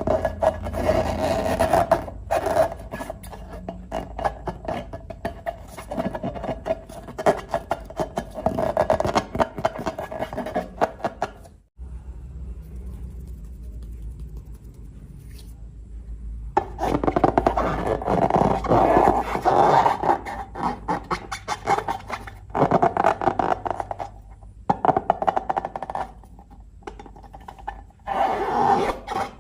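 Slime being squished and worked by hand, with dense runs of small wet crackles and pops. There is a quieter pause partway through before the crackling resumes.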